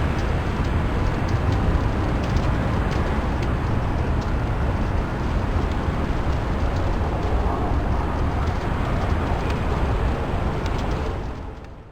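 Steady rain ambience with a deep rumble underneath and scattered faint ticks, fading out near the end.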